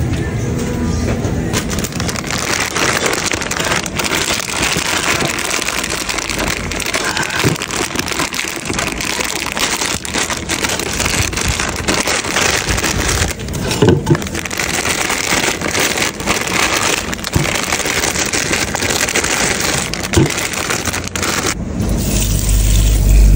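Steady crackling and rustling of a thin plastic rice-vermicelli bag being torn open and handled. Near the end, tap water starts running into a bowl.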